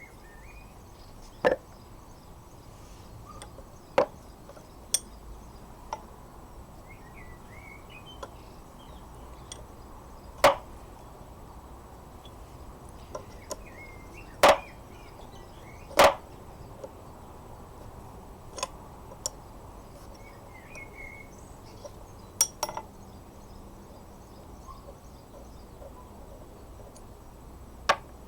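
Sharp, scattered clinks and knocks of the steel parts of a wrought iron locksmith vise being handled and set down during disassembly, about ten at irregular intervals, loudest three in the middle.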